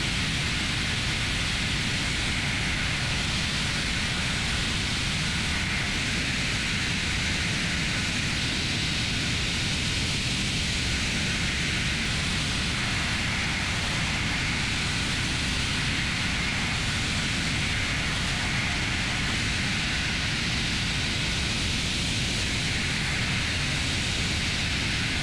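CNC milling machine at work: a steady, even hiss of noise with no clear tone.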